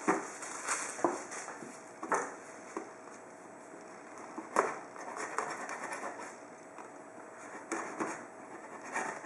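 A knife point scraping and picking at the taped seam of a cardboard box, with scattered scratches and sharp taps on the cardboard as the knife struggles to cut through.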